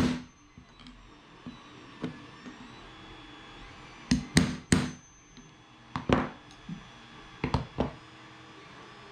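Small hammer tapping a steel drift punch to press a tiny 3x7x3 mm ball bearing into a 3D-printed outboard gear case. There is a quick run of three taps about four seconds in and two more about six seconds in, then a few lighter knocks near the end.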